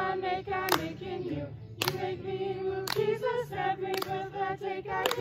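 Two women singing a camp worship song together, with a sharp beat about once a second.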